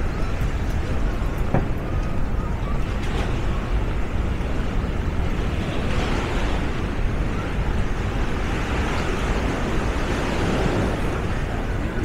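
Steady outdoor city ambience: a constant rumble of traffic, with no single event standing out.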